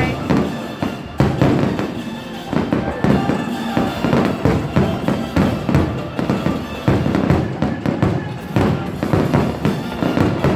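Aerial fireworks bursting in quick succession: a steady run of loud booms and crackles, one after another, with music playing underneath.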